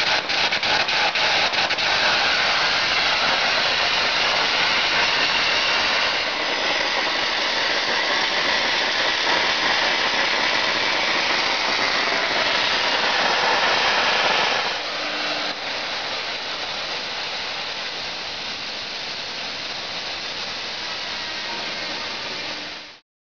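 Air carbon arc gouging with an Arcair-Matic N7500 torch: the carbon electrode's arc and the compressed-air jet blasting molten steel out of the groove make a loud, steady crackling hiss. About fifteen seconds in it drops to a quieter hiss, which cuts off abruptly near the end.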